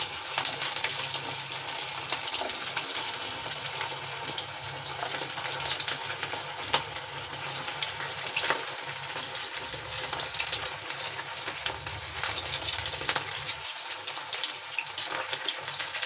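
Poha and cauliflower vada balls deep-frying in hot oil in a kadhai: a steady sizzle with many small crackling pops.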